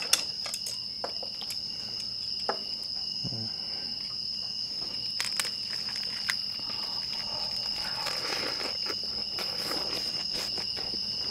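Crickets chirring in one steady, unbroken high tone. Over it come close chewing of lettuce-wrapped bulgogi and scattered small clicks and crunches.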